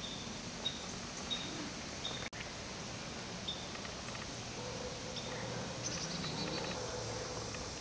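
Outdoor ambience: a steady background hiss with short, high chirps repeating every half second or so, from small birds or insects. The whole sound drops out for an instant a little over two seconds in.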